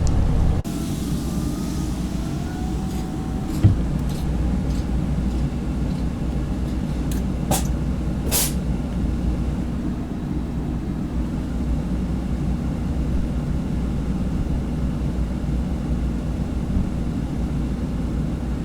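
Semi-truck engine idling steadily, with a few light clicks and one brief hiss about eight seconds in.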